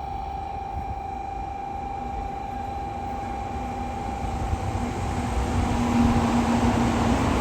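Shinkansen bullet train approaching at speed: a rushing noise builds steadily louder toward the end, over a steady high tone.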